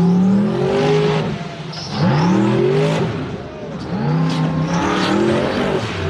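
Off-road 4x4's engine revving hard in three surges, each rising in pitch then holding, with a few sharp knocks about two thirds of the way through.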